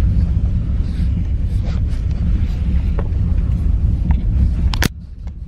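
Low, steady rumble of a car driving, heard from inside the cabin, with wind buffeting the microphone. A sharp click comes near the end, and the rumble then drops off sharply.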